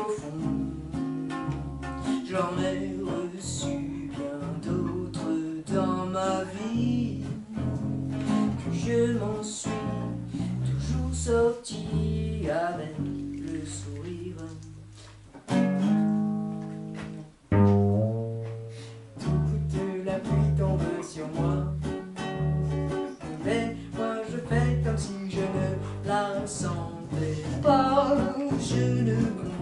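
Two acoustic guitars, one a nylon-string classical guitar, playing the song's chords together in a steady rhythm, with a voice singing along. A little past the middle the playing thins and drops away briefly, then comes back in.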